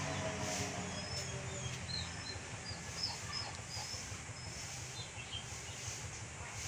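Birds chirping, a scatter of short high notes between about one and three and a half seconds in. Under them is a low steady hum that fades out after the first second or so, over faint outdoor background noise.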